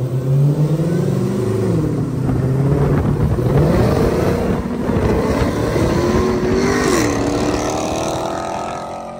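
Dodge Challenger Hellcat's supercharged V8 on a straight-piped MBRP race exhaust, accelerating hard: the exhaust note climbs in pitch, drops at an upshift about two seconds in and again about seven seconds in, then fades as the car pulls away.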